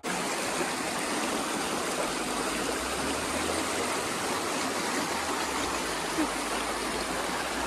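Small fast-flowing stream rushing over rocks in white-water rapids, a steady rushing of water that starts suddenly.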